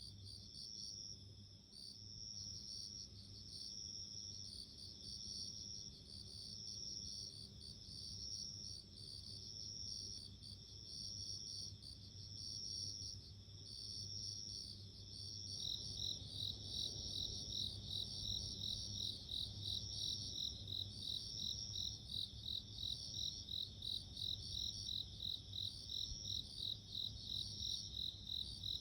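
Japanese bell crickets (suzumushi) chirping in repeated high, ringing trills. About halfway through, a second, louder cricket joins with a faster run of chirps.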